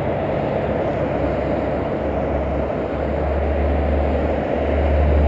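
Road traffic with a steady low engine rumble, growing somewhat louder in the second half as cars pass.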